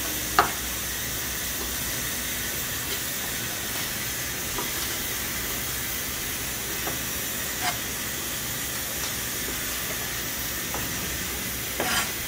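Pressure cooker hissing steadily as steam escapes from its valve, a sign it is holding pressure while cooking on low heat. A few sharp knife strikes on a wooden cutting board cut through it as prawns are diced, the loudest about half a second in and another cluster near the end.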